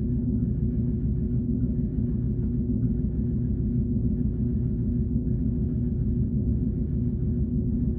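Alien tone sound effect: a steady, loud low drone with one held tone, its fainter upper hiss pulsing about once every second and a bit.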